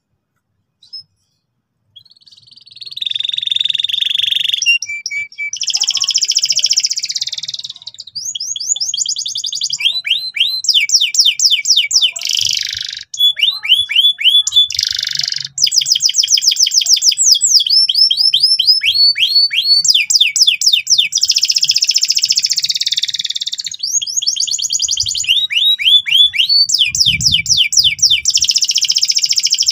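Domestic canary singing a loud, unbroken song that starts about two seconds in. It alternates fast trills of repeated downward-sweeping notes with dense, buzzy rolled phrases.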